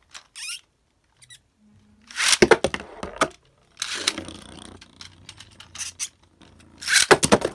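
Beyblade Burst spinning tops launched into a towel-lined plastic stadium. There is a loud launcher-and-clatter burst about two seconds in, a top spinning and rattling for a few seconds, then another loud clattering launch near the end.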